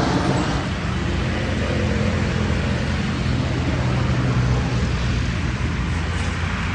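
Jet airliner engines running, a steady rumble with a low hum that eases slightly in level.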